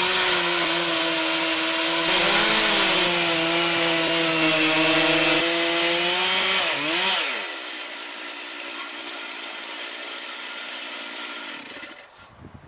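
Stihl chainsaw in an Alaskan chainsaw mill, running at high revs under load as its ripping chain cuts lengthwise through a Douglas fir log. About seven seconds in, the sound turns quieter and thinner, then falls away near the end.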